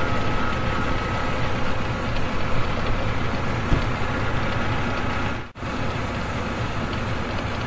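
Dubbed sound effect of a vehicle engine idling steadily, with a low rumble. About five and a half seconds in the sound drops out for an instant, at an edit, and then resumes.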